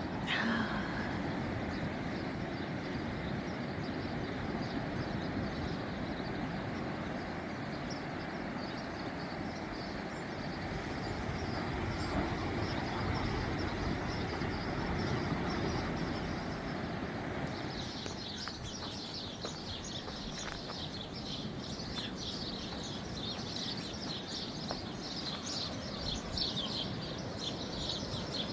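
Steady rush of surf on the beach. About two-thirds of the way through, many small birds start chirping busily over the wave noise.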